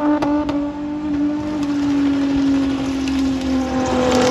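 Holden Commodore wagon doing a burnout: the engine is held at high revs with the rear tyres spinning. Its steady note sags slowly in pitch, and there are a couple of short cracks about half a second in.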